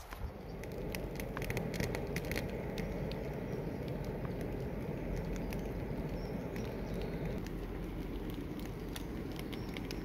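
Campfire of damp wood crackling, with sharp snaps most frequent in the first few seconds over a steady rushing noise.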